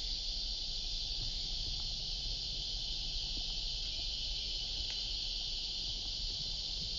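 Steady, unbroken high-pitched drone of a summer cicada chorus, with a faint low rumble beneath it.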